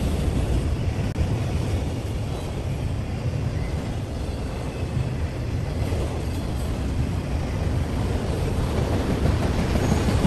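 Autorack freight cars rolling past: a steady low rumble of steel wheels on the rails.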